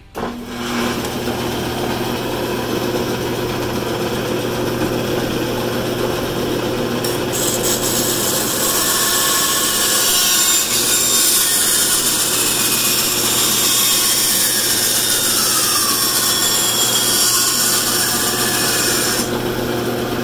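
Bandsaw switched on at the start and running steadily with a constant hum, its blade cutting through a black plastic right-angle hose adapter. A higher hiss joins about seven seconds in.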